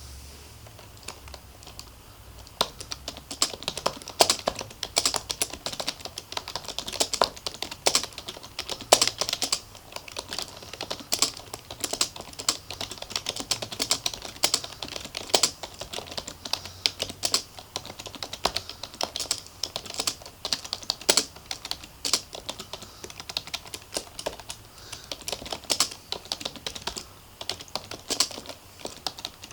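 Typing on a Logitech MK250 membrane keyboard: a quick, irregular stream of key clicks that starts about a second in.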